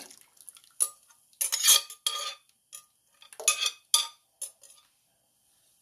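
Glass blender jar and long metal spoon clinking and scraping against a stainless-steel stockpot as the jar is emptied into the water and the spoon is worked in the pot. There are a dozen or so irregular short clinks and knocks, the loudest about a second and a half in, and they stop a little before five seconds in.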